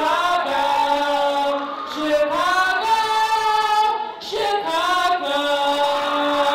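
A high, female-sounding voice singing a song, holding long notes of about a second each and sliding between them, with little accompaniment heard.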